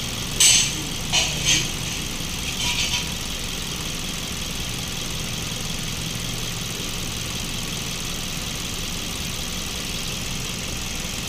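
Mazda CX-5's engine idling steadily, kept running so the automatic transmission fluid level can be checked while fluid is topped up. A few brief sharp noises stand out in the first three seconds.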